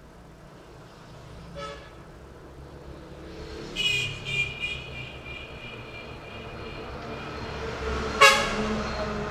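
Vehicle horns honking in street traffic: a short toot about one and a half seconds in, a quick run of toots around four seconds, and a loud honk near the end, over a low traffic rumble that grows louder.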